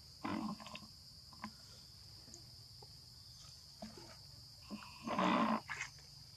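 Two short, harsh monkey calls, one just after the start and a louder one about five seconds in, over a steady high drone of insects.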